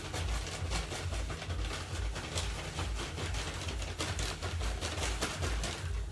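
Plastic bag of seed-starting soil crinkling and rustling as it is shaken out over a tray, with a dense run of small crackles.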